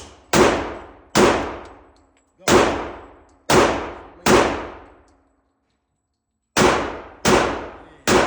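Glock 30 .45 ACP pistol fired eight times by a first-time shooter, each shot ringing off for under a second. Five shots come about a second apart, then after a pause of about two seconds three more.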